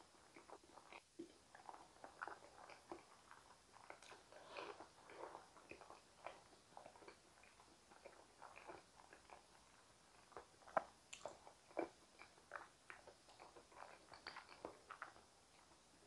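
Faint, soft chewing and wet mouth sounds of someone eating whole steamed potatoes: many small clicks and smacks, with two sharper clicks about eleven and twelve seconds in.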